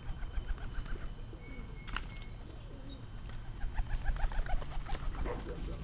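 Pigeons flapping their wings in two quick flurries, the second and louder one near the end, with a few short high chirps between.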